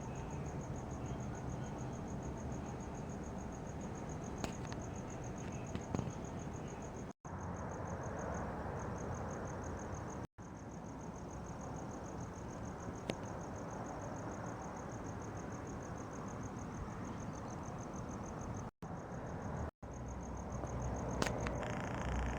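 A cricket chirping in a steady, rapid high-pitched pulse over a low background rumble. The sound drops out briefly four times.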